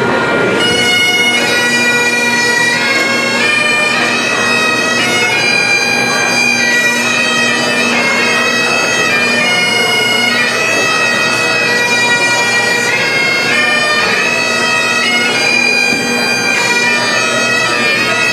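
Bagpipes playing a tune over a steady drone, starting about half a second in.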